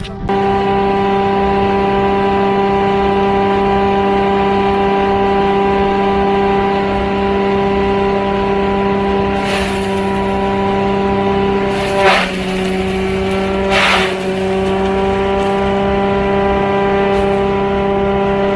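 Tractor-driven shredder chopping dry sugarcane trash, running with a steady high hum. Three louder rasping surges come as stalks are fed in, and the pitch sags briefly under the load on the last two.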